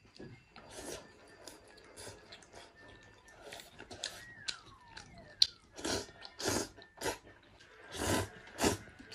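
A person chewing, then slurping glass noodles from a bowl of stew: soft mouth clicks at first, then a run of short, loud slurps about half a second apart in the second half. A faint falling whistle-like tone passes about four seconds in.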